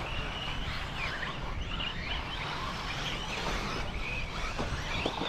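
1/8-scale RC offroad buggies running around a dirt track, their motors whining and rising and falling in pitch over a steady background of track noise.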